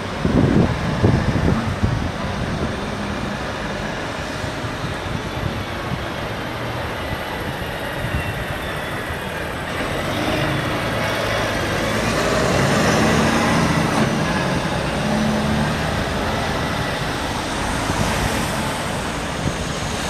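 City road traffic passing steadily, cars, buses and trucks, with wind buffeting the microphone in the first couple of seconds.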